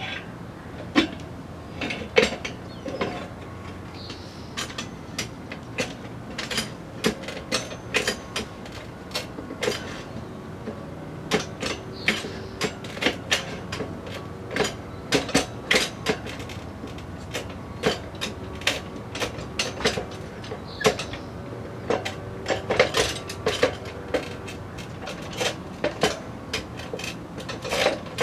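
Tire spoons and a motorcycle wheel rim clinking and clanking irregularly as the last tire bead is levered off the rim, with many short metallic clicks and knocks.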